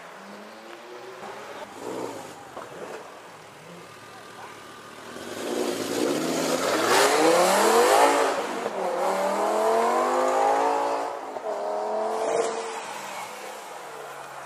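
A performance car's engine accelerating hard: after a few quieter seconds its pitch climbs steeply, drops at a gear change, climbs again and drops at a second upshift, loudest around the middle.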